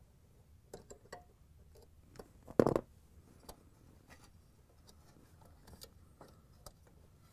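Needle-nose pliers working a wire bail strap off a refrigerator compressor's start device: scattered small metal clicks, with one sharper clack about two and a half seconds in.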